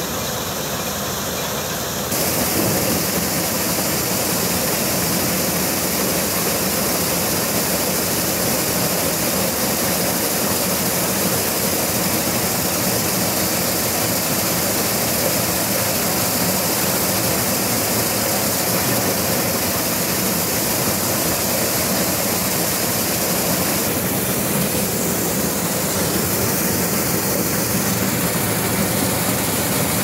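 Tractor-powered maize sheller running steadily, a dense mechanical din of the engine and the threshing drum working through corn cobs. It gets a little louder about two seconds in.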